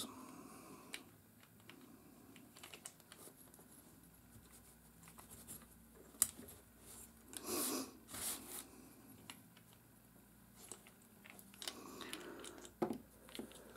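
Faint scattered clicks and taps of small metal parts being handled as a Daiwa BG 3500 spinning reel's pinion gear and ball bearing are fitted back on the shaft. A louder rustle comes about seven and a half seconds in, and a few sharper ticks near the end.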